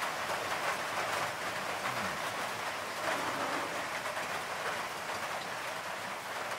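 Steady rain falling, a dense even patter and hiss.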